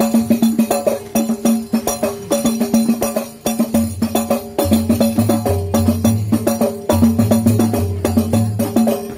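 Rebana frame drums beaten in a quick, even rhythm, with a steady held note above them and a low bass part that comes in about four seconds in.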